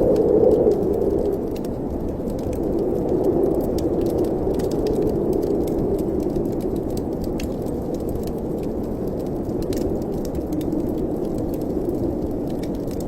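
Wind blowing in a fireplace chimney: a low, steady rushing that swells and eases slowly, with scattered faint crackling clicks.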